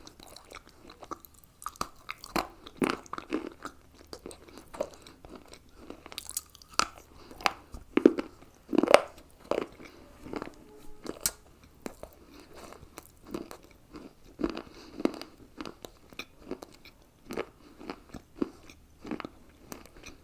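A person biting and chewing hard, chalky pieces close to the microphone: irregular crisp crunches one after another, with a run of the loudest bites about eight to nine seconds in.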